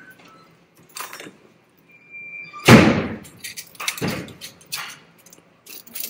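Metal clips and band of a cap embroidery frame clicking and clanking as a finished cap is unclipped and pulled off the frame: a handful of sharp metallic knocks, the loudest a clank with a short ring a little under three seconds in, just after a brief high squeak.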